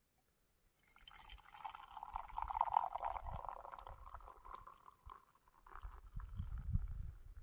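Tea poured from a soot-blackened camping kettle into an enamel mug, a steady trickling splash that starts about a second in and fades after a few seconds. A low rumbling comes in near the end.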